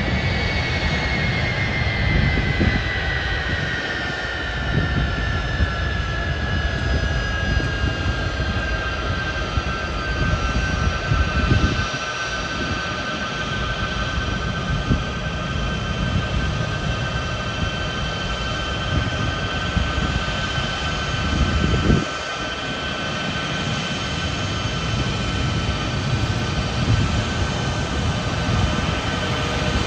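Boeing C-17 Globemaster III's four Pratt & Whitney F117 turbofans running at taxi power: a steady engine whine over a low rumble, the whine falling slightly in pitch over the first ten seconds and then holding steady.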